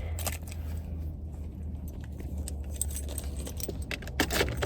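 Car engine idling with a steady low hum, heard from inside the cabin, under scattered light clicks and rattles of small things being handled, busiest near the end.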